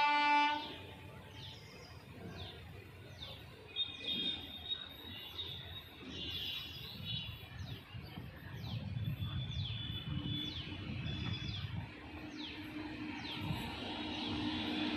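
A locomotive horn cuts off about half a second in. Then birds chirp repeatedly, short downward-falling chirps about once or twice a second, over the low rumble of an approaching goods train, with a steady low hum from the WAG-9 electric locomotive setting in about two-thirds of the way through as it draws nearer.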